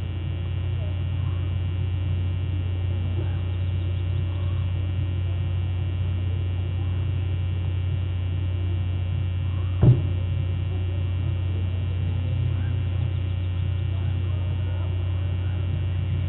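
Steady low hum, with faint short chirps now and then and a single sharp click about ten seconds in.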